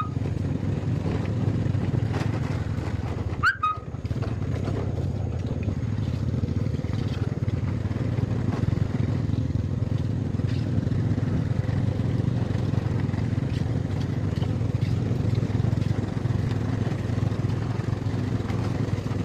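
Small motorcycle engine running steadily, heard from aboard the bike, with wind and road noise. A short high chirp comes about three and a half seconds in.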